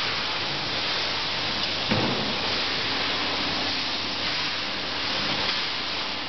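Vaculex vacuum tube lifter hissing steadily as its 3 kW pump draws air through the lift tube and suction foot. A single thump sounds about two seconds in.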